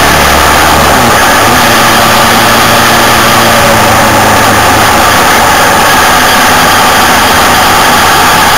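Motorcycle riding on the road, picked up by a camera down by the chain: a loud, steady rush of road and drive-chain noise over the hum of the Suzuki SV650's V-twin engine. The engine note changes about a second in.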